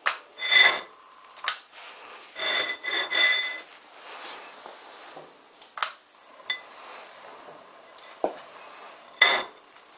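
A few ringing metal-on-metal clinks and sharp knocks as the scriber is set against the cast-iron faceplate. About six seconds in, the vintage Karger lathe starts turning the faceplate, with a faint steady high-pitched whine.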